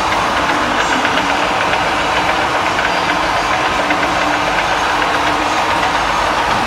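Mysore Kirloskar Enterprises 400 heavy-duty lathe running steadily, its geared headstock turning the chuck.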